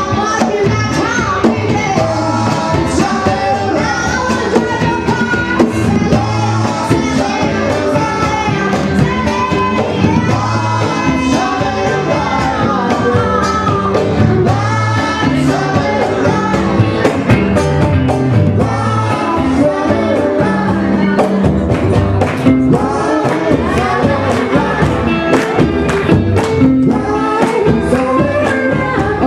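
Live acoustic band playing a song: male and female voices singing together over strummed guitars, with light percussion keeping the beat.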